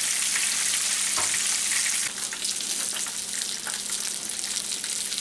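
Bluefish shallow-frying in hot oil in a skillet: a steady, dense sizzle with scattered crackles and pops, easing slightly about two seconds in.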